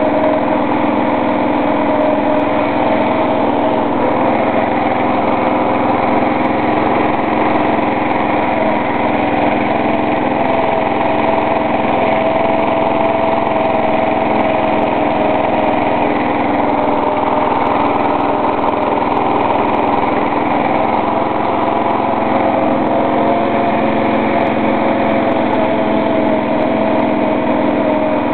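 Engine of a 1982 Simplicity lawn tractor running steadily at an even speed.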